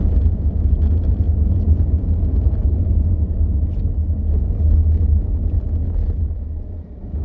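Steady low rumble of a car's engine and tyres on the road, heard from inside the cabin while driving, easing briefly just before the end.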